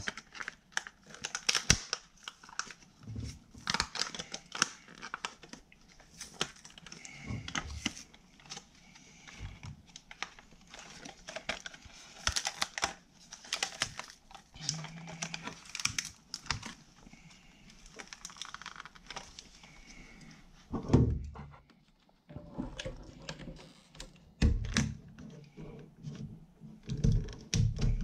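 Stiff plastic clamshell blister pack being cut with scissors and pried apart by hand: a steady run of irregular crackling, snipping and crinkling plastic, with a few dull thumps of the package against the table in the last several seconds.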